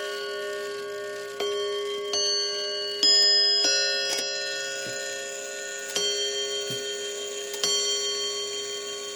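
Seth Thomas Sonora chime clock sounding its hour chime on its tuned bells: struck notes in a slow, uneven sequence, each ringing on into the next, with the strokes spacing out to about a second and a half apart near the end.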